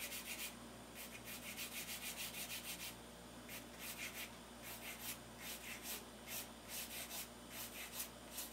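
2H graphite pencil drawn in quick, light strokes across sketchbook paper: a dry scratching repeated about four or five times a second, in runs with brief pauses between them.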